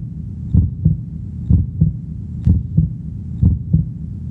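Human heartbeat: steady lub-dub pairs of low thumps, about one beat a second, over a steady low hum.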